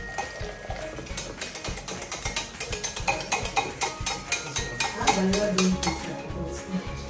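Wire whisk beating egg batter in a pot: a fast, continuous run of clicks and scrapes as the wires strike the pot's sides.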